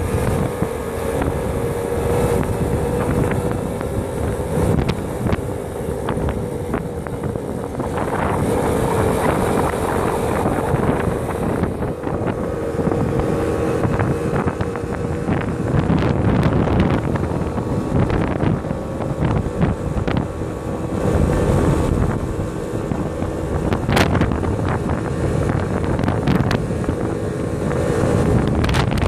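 Hired quad bike's engine running steadily while riding along a road, with heavy wind buffeting on the microphone.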